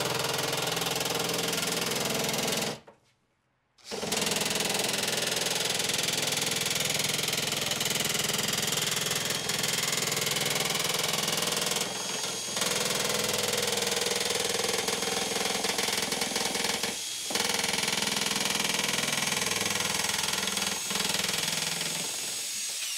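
Cordless drill driving a nibbler attachment, punching its way through the steel front guard panel to open a round hole out into an oval: a fast, steady mechanical chatter. It stops for about a second near the start and pauses briefly twice more.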